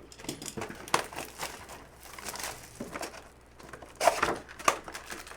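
Foil trading-card pack wrappers crinkling and tearing as packs from a Panini Phoenix football hobby box are ripped open, in irregular crackly bursts.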